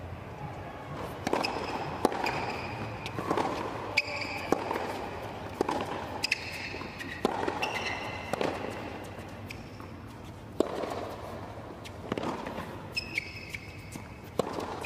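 Tennis rally on a hard court: a string of sharp ball strikes off the rackets and court, with short high shoe squeaks as the players move between shots.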